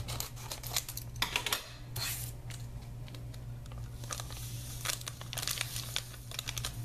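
A foil-lined powder sachet being crinkled and torn open by hand: irregular clusters of short crackles and rips.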